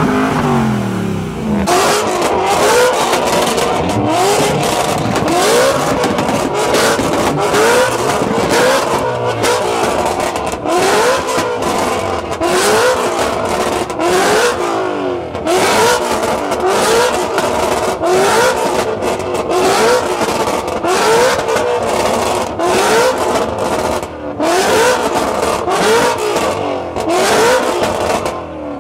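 A Ford Mustang Shelby GT350's V8 revved again and again, each rev a quick rising blip about once a second, with sharp exhaust pops and crackles between them. For the first second or two a BMW M3's engine is heard settling back from a rev.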